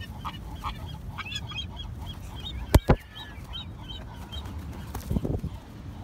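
A flock of birds calling: many short, repeated calls overlapping. Two sharp knocks come close together about three seconds in.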